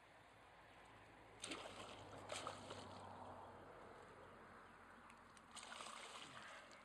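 Faint splashing of a hooked northern pike thrashing at the water's surface as it is brought in to be landed: a few short splashes, the clearest about one and a half and two and a half seconds in, and another near the end.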